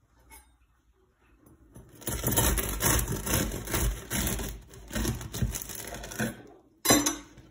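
Serrated bread knife sawing through the crisp crust of a sourdough loaf: a rough crunching rasp with each stroke, about two strokes a second, starting about two seconds in. One short sharp crunch follows near the end.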